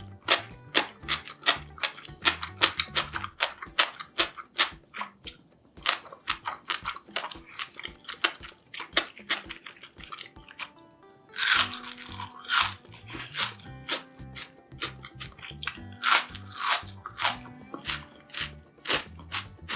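Crisp, irregular crunching and chewing of freshly fried tempura being eaten, with louder crunchy bites about twelve seconds in and again around sixteen seconds.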